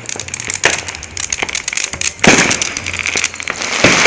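Firework fountain going off: rapid sharp crackling pops, with a louder hissing spray that builds about two seconds in.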